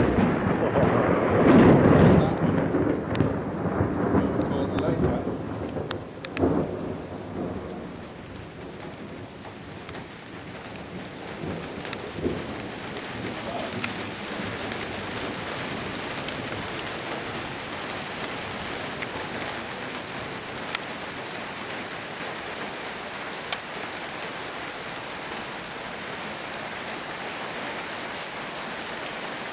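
Thunder from a nearby lightning strike, loud at first and rumbling down over about eight seconds, with a shorter burst about six seconds in; then steady rain falling on surfaces.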